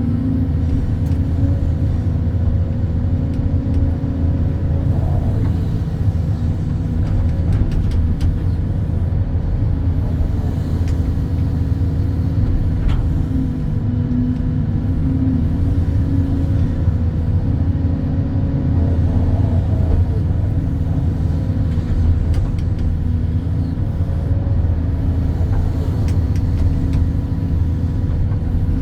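Excavator's diesel engine running steadily under working load, a continuous low drone with small shifts in pitch as the machine digs.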